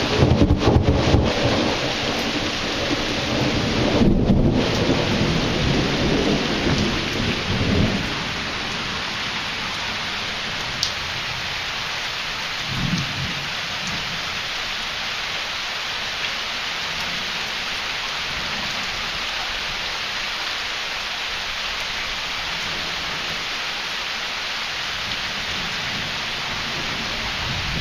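Thunder rumbling over steady heavy rain, the thunder dying away about eight seconds in. A short, fainter rumble comes a few seconds later while the rain keeps falling.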